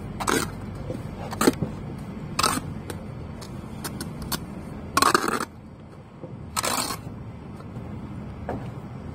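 Broken brick pieces being picked up and knocked about: six short scrapes and clatters, the longest and loudest about five seconds in, over a steady low background hum.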